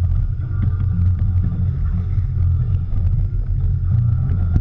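A boat's engine running with a steady low rumble.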